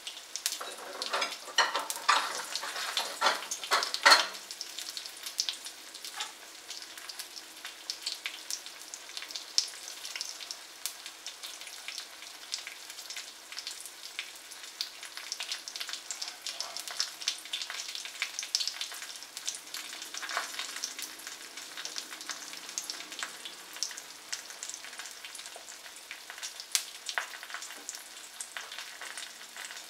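An egg frying in hot oil in a wok: a steady sizzle full of small spitting crackles, crackling harder in the first few seconds.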